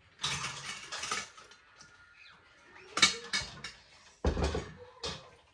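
Kitchen handling noise: utensils and dishes clattering and scraping in several short bursts, with a heavier thump about four seconds in.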